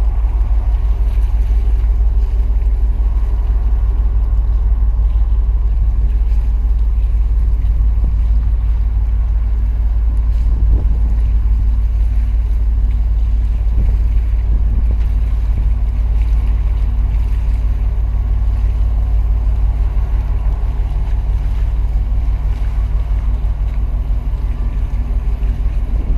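Steady low rumble from a large container ship passing close by, mixed with wind buffeting the microphone. A slightly higher hum joins the rumble about halfway through.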